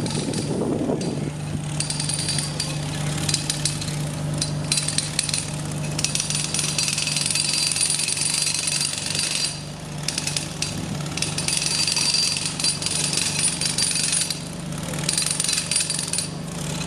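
A percussive power tool, like a jackhammer, rattling in spells of one to three seconds with short breaks between them, over a steady low engine hum.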